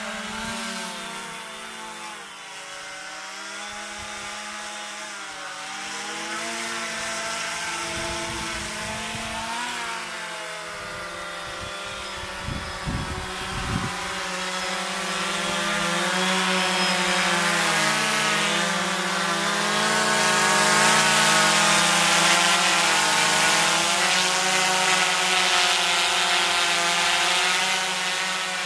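DJI Phantom quadcopter's four propellers whining at slightly different pitches that waver and beat against each other as the motors work to hold it up with a load of water bottles hung beneath it. It gets louder from about halfway as the drone comes close, with a few low rumbles partway through.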